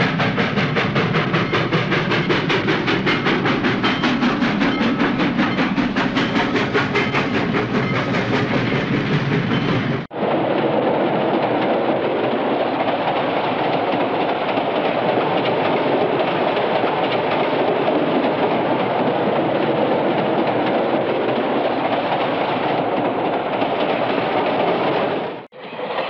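Moving train on the rails, heard in two spliced recordings: first a fast, even clickety-clack of the wheels for about ten seconds, then after a sudden cut a steadier running noise of the train.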